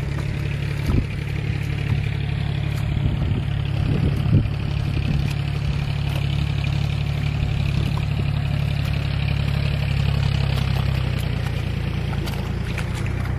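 Tractor diesel engine running steadily at a constant speed, with a couple of dull thuds from a hoe chopping into wet mud.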